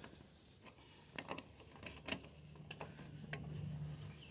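Faint scattered clicks and light taps of metal hardware being handled on the pig tractor's frame, with a low steady hum coming in about a second and a half in.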